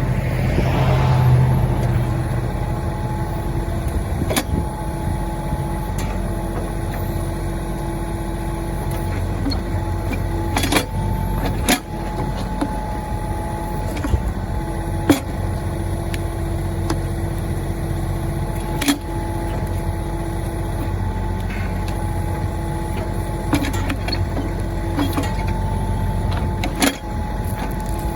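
Mahindra 1626 tractor's diesel engine running steadily while it powers the backhoe digging out a stump, with several sharp knocks scattered through.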